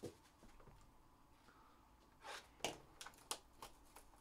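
Sealed cardboard trading-card boxes being handled: a soft knock at the start, then a short rustle and a few sharp clicks and taps of cardboard in the second half as a box is taken from the stack.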